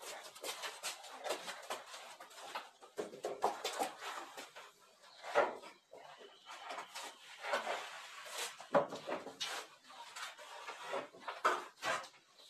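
Wooden table being carried and handled: irregular knocks, bumps and scrapes of pine boards, with shuffling steps.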